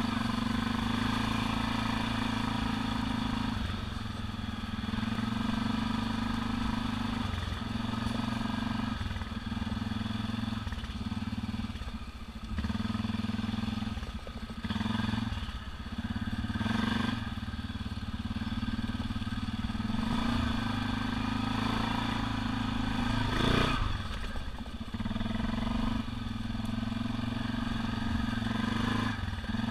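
ATV engine running as the four-wheeler is ridden along a dirt trail, the throttle easing off and coming back on several times. A couple of short bursts of noise stand out about halfway through and again around three quarters of the way in.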